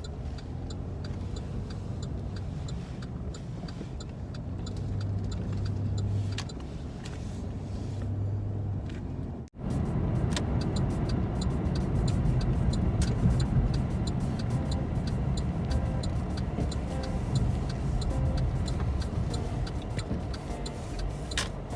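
Car driving on the road, heard from inside the cabin: a steady low engine and tyre rumble, cut briefly about nine and a half seconds in and a little louder after.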